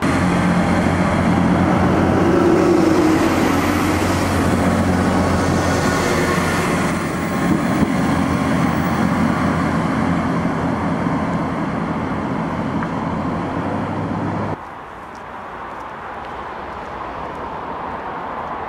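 Class 158 diesel multiple unit's underfloor diesel engines running with a steady low throb as the train moves along the platform and away, growing slightly fainter. The sound cuts off suddenly about fourteen seconds in, leaving a quieter outdoor background.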